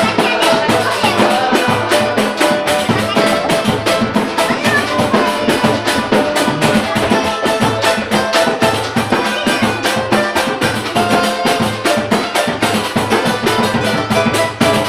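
Samba-pagode band playing without vocals: dense percussion keeping a steady beat under a melody line.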